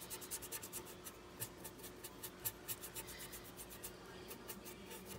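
Small brush scrubbing black wax into the corner of painted furniture: faint, quick scratchy strokes of the bristles, about eight a second, thinning near the end.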